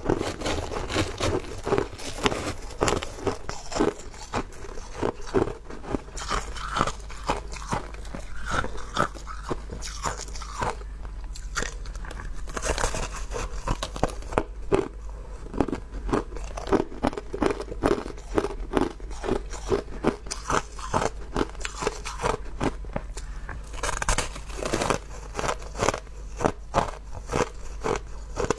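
Crushed ice being bitten and chewed: a dense run of sharp, crisp crunches, several a second, with no pauses.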